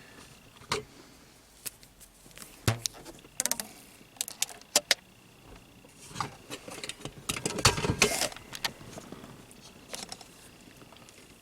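Hands stretching rubber bands around a car sun visor to clamp its vanity mirror while silicone sets. Scattered sharp clicks and taps, with a busier stretch of rustling and clicking about six to nine seconds in.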